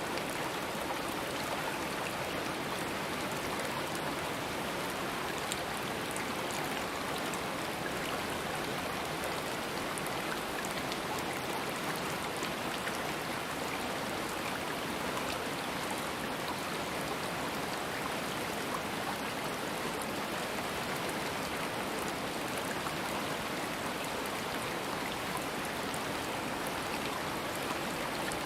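Stream water running and splashing steadily, an even rushing with fine droplet patter.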